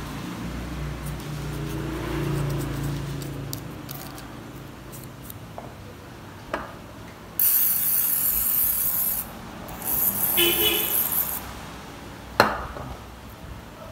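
Two bursts of spray hissing in the middle, the first about two seconds long and the second about a second and a half, on a phone's metal keypad frame being cleaned. Before them come soft scrubbing and handling noises, and one sharp click comes near the end.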